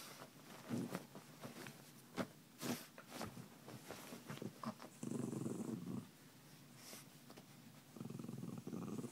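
Small terrier-mix dog giving two low, rumbling grumbles, each about a second long, about five and about eight seconds in, the sort of throaty rumble a small dog makes when playful. Short rustles and soft clicks from the bedding come in between.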